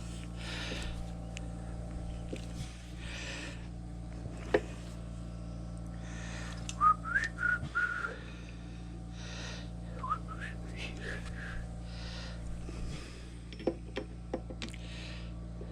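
A person whistling a few short notes that swoop upward, in two brief phrases a few seconds apart, over a steady low hum. Scattered light clicks come from metal parts being handled.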